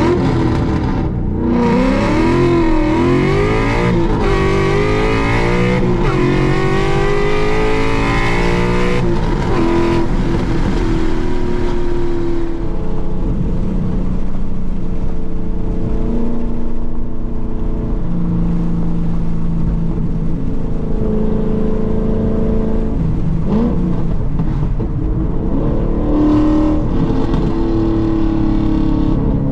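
Ford Boss 302 Mustang's 5.0-litre V8 through aftermarket aluminized-steel side pipes, revving up hard in rising pulls for about the first nine seconds, with short drops in pitch as it shifts up through the gears. It then eases off and settles to a lower, steadier cruise.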